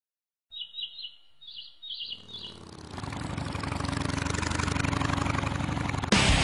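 Intro of a hardcore song. A few high, warbling chirps give way to a distorted drone that swells steadily louder, and about six seconds in the full band comes in with heavy guitars.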